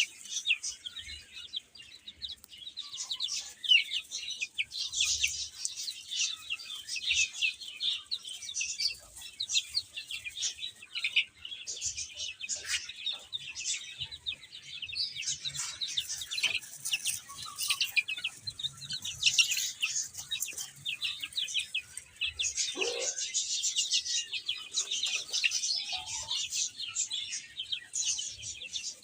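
A brood of baby chicks peeping continuously, many short high chirps overlapping.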